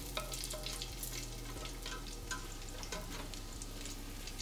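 Bacon fat sizzling with small crackling pops in a stainless steel pot, while a spoon scrapes and clinks against the pot lifting out the cooked bacon pieces.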